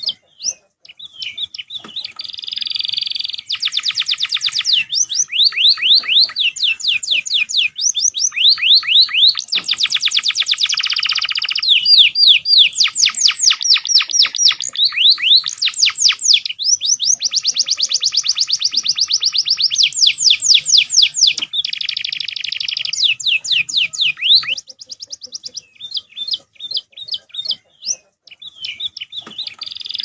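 Domestic canary song mixed with fill-in phrases of perenjak and ciblek (prinias), from a cage-bird training master track. It runs as long runs of fast repeated chirps and rolling high trills. The song breaks off about 24 seconds in and starts again near the end.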